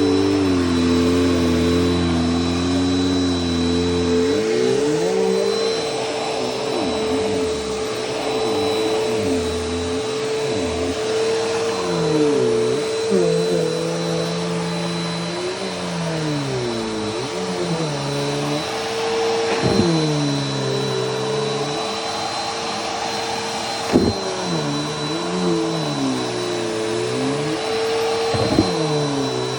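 Vacuum cleaner running with a steady motor whine, its lower tones repeatedly dipping and rising as the load on it changes. Two sharp knocks, about three-quarters of the way through and near the end.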